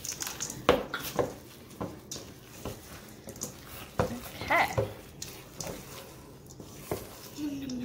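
Wooden spoon stirring thick cookie dough with chocolate chips in a stainless steel mixing bowl: irregular scrapes and knocks of the spoon against the metal bowl, the loudest about a second in and about halfway through.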